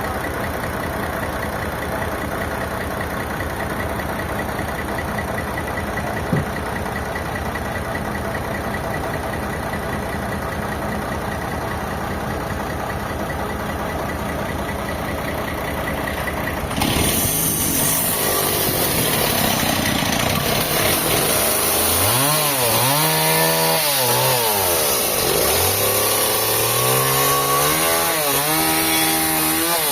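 An engine running steadily with one short knock. About halfway through the sound changes, and an engine revs up and down over and over.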